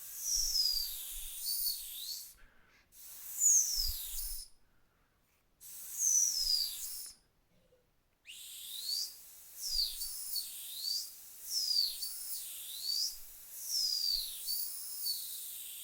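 Dog whistle blown in short, high-pitched swooping notes, mostly falling in pitch, about one a second. It pauses twice in the first half, over a faint hiss.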